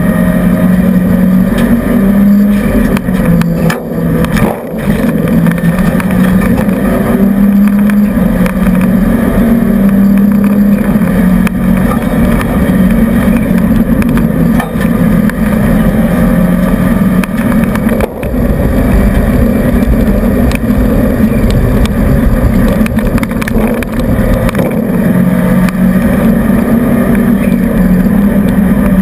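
Renault 5 GT Turbo's turbocharged four-cylinder engine working hard, heard from inside the rally car's cabin. The engine note climbs and drops back again and again, with short dips in loudness about four seconds in and again near eighteen seconds.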